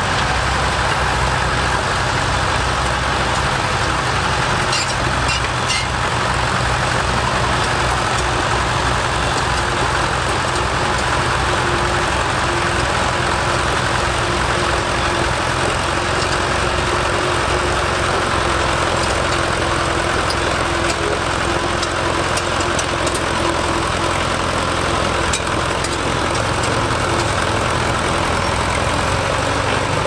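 Fordson County crawler bulldozer's engine running steadily as the machine pushes soil with its blade.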